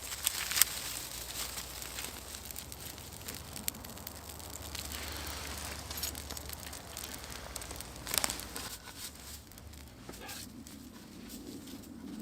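Small fire of birch bark and twigs crackling, with rustling of dry kindling and a few sharp snaps, the loudest about half a second in and about eight seconds in.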